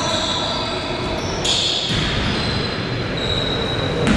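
Basketball game in a sports hall: a steady din of crowd and players, with a ball bouncing on the court.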